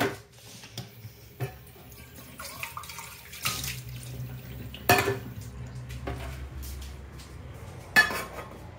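Kitchen crockery and cutlery clinking and knocking: several sharp clinks, the loudest at the very start, about five seconds in and near the end. A tap runs steadily through the middle.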